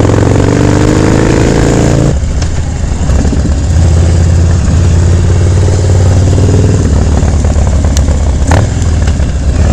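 Harley-Davidson Dyna Street Bob's V-twin engine running loud through an aftermarket FAB28 exhaust pipe under way, its pitch climbing for about two seconds, then dropping abruptly and running on steadily.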